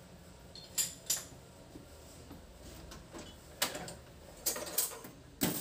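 Sharp metallic clinks and knocks from metal tools being handled at a stopped metal lathe: about six separate clacks, the loudest near the end.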